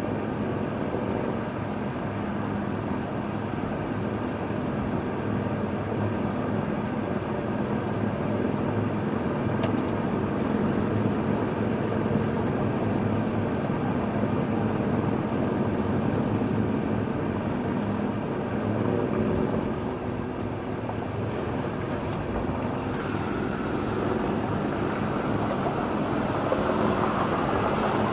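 Several motorcycles cruising together at highway speed: a steady drone of their engines mixed with wind and road noise.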